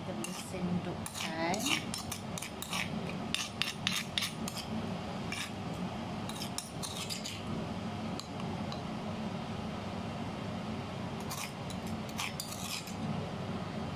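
Metal spoon scraping and clinking against a stone mortar (lesung) as wet pounded chilli sambal is scooped out, in clusters of strokes through the first half and again briefly near the end, over a steady low hum.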